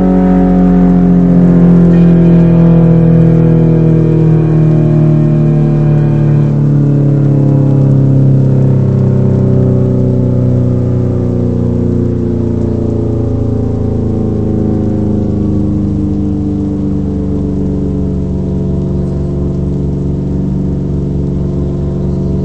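ACA Banshee 115 electromechanical outdoor warning siren winding down: its loud, rich tone falls slowly and steadily in pitch as the rotor loses speed.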